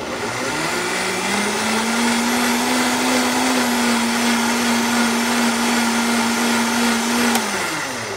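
Vitamix blender running loud, its motor rising in pitch as the variable-speed dial is turned up, then holding a steady high speed while it froths a liquid coffee mix with butter and cream. Near the end the motor winds down, the pitch falling away.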